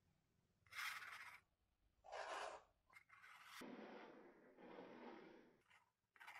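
Steel palette knife scraping and spreading thick acrylic paint across a cotton canvas, faint: two short strokes, then a longer smoothing stroke of about two seconds, and a brief scrape near the end.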